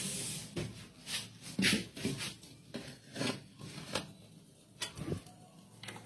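Irregular rubbing and scraping noises, about eight short strokes a few tenths of a second to a second apart, like something being handled or brushed against a wooden table.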